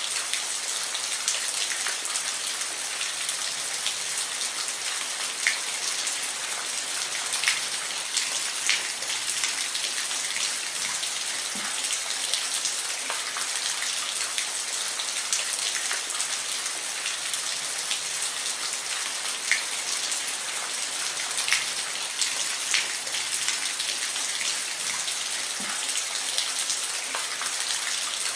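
Steady rain falling, a continuous hiss with scattered sharper drops hitting a surface every second or so.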